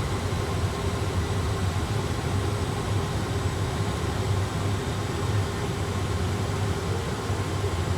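Steady cockpit background noise in an A320 flight simulator on final approach: an even rushing noise over a low hum, unchanging throughout.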